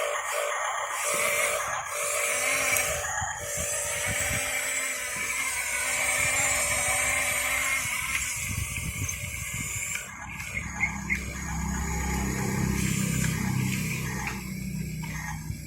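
Radio-controlled bulldozer at work: steady motor and gear whine, with a deeper rumble joining about halfway through.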